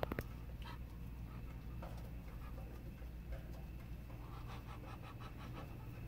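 Chickens roosting in a wooden coop: a few faint short clucks and light scratchy shuffling over a steady low hum, with a couple of sharp clicks at the very start.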